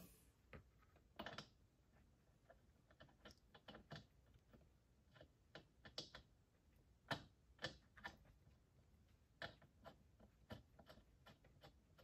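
Near silence broken by faint, irregular small clicks of hand tools working a new spark plug into a STIHL MS210 chainsaw's cylinder.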